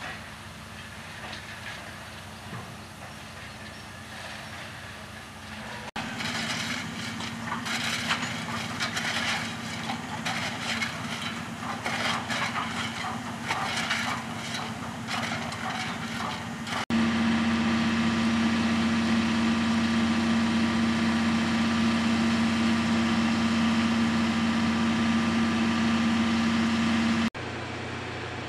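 C58-class steam locomotive standing for servicing: a steady low hum, with irregular hissing and crackling over it from about six seconds in. Then a loud, steady droning tone for about ten seconds, ending abruptly near the end.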